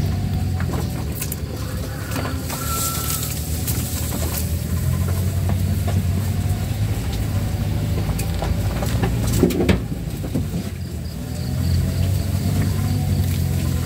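Ambulance engine running at low speed, heard from inside the cab, with knocks and rattles from the body as it creeps along a rough dirt track; a louder clatter about two-thirds of the way through.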